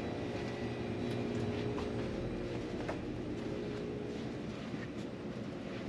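Steady mechanical hum of the shop's drinks coolers and chest freezers running, with a few faint light ticks.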